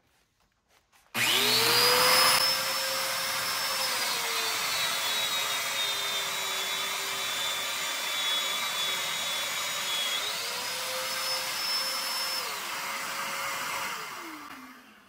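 Festool Domino joiner with its Festool dust extractor, starting about a second in with a rising motor whine over the extractor's steady rush. The whine sags in pitch under load as the cutter plunges into the board, rises again near ten seconds, then winds down near the end.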